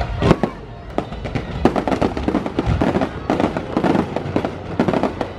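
Fireworks going off in rapid succession: a loud bang just after the start, then a dense run of sharp pops and crackles.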